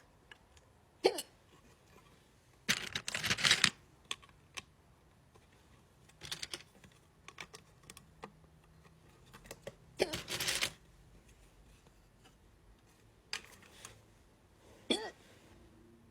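A person hiccuping, with a sharp hic about a second in, another near ten seconds and another near the end, each with a brief falling pitch. Soft clicks and rustling come in between.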